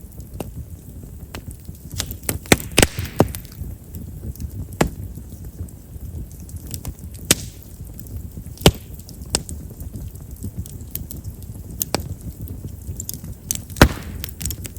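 Chestnut-wood campfire crackling, with sharp, irregular pops over a steady low rumble of the flames: a cluster of pops about two to three seconds in and the loudest single pop near the end. Chestnut has large pores and is known as a wood that pops readily.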